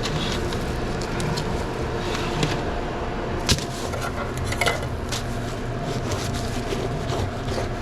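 Light clatter of food-counter handling (scattered clicks and knocks, the sharpest about three and a half seconds in) over a steady hum of restaurant equipment.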